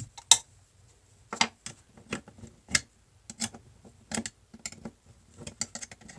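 Small metal parts of a door lock clicking and clinking as the lock is taken apart and the pieces are handled. The clicks are irregular sharp taps, about a dozen of them, the loudest just after the start.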